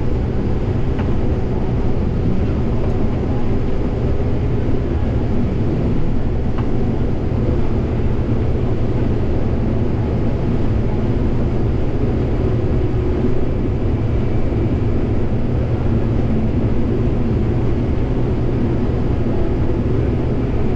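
Combine engine running steadily, a loud, even drone with no changes.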